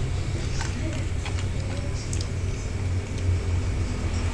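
Scattered light plastic clicks and taps as toy train set pieces are handled, over a steady low rumble.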